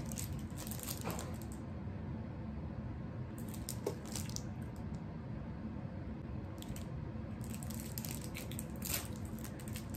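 Quiet steady room hum, with a short faint knock from another room about four seconds in. Near the end a plastic chocolate-bar wrapper crinkles as it is torn open.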